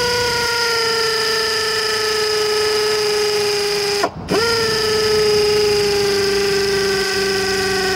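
Pneumatic air ratchet spinning a cylinder head bolt down on a GM 4.8/5.3/6.0 V8: a steady, high whine whose pitch sags a little as the bolt runs in. It stops briefly about four seconds in, then runs again.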